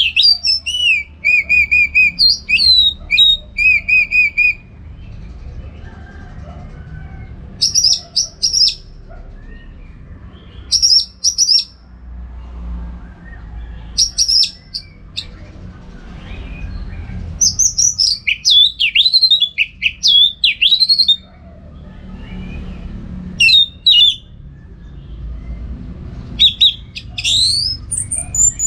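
Orange-headed thrush singing bursts of fast, varied high whistled phrases, some repeated several times, with pauses of a few seconds between bursts, over a low steady background rumble.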